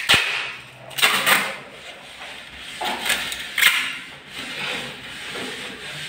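Hands working on a flexible ribbed aluminium chimney duct: a sharp knock at the start, then several short scraping, crinkling bursts as tape is pulled from its roll and pressed around the joint with the duct's plastic collar.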